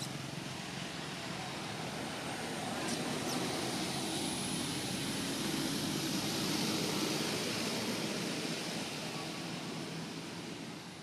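Distant engine noise passing by: a broad rushing sound that swells over several seconds, peaks around the middle and fades away, with a faint high whine rising slowly through it.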